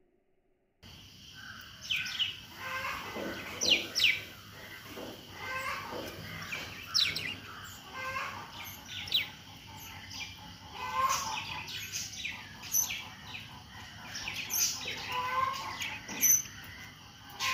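Several budgerigars chattering: a busy run of warbling and sharp chirps, starting about a second in.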